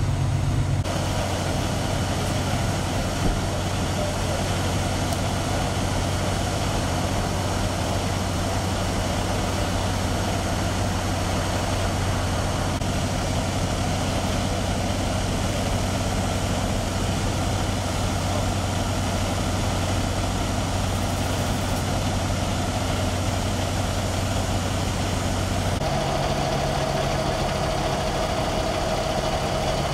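Fire engine's diesel engine idling, a steady low hum. The hum shifts slightly about a second in and again near the end.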